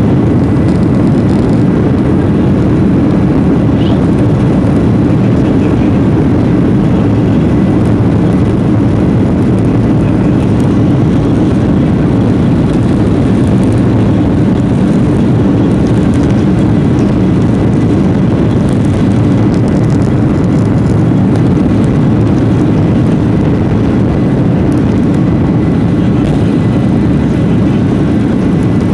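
Jet airliner's engines at takeoff power, heard from inside the cabin over the wing: a loud, steady, deep roar during the takeoff roll and liftoff.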